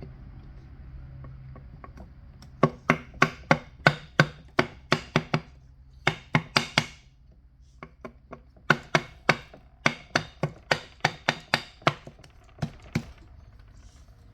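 Rapid sharp taps, about three or four a second, in two runs of a few seconds each with a short pause between.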